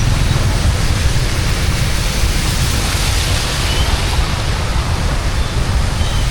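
Steady, loud wash of floodwater and heavy rain, with a low rumble underneath.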